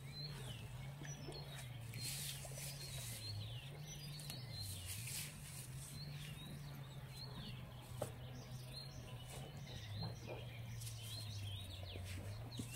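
Small birds chirping: short high calls that drop in pitch, repeated irregularly, over a steady low hum that wavers up and down in pitch.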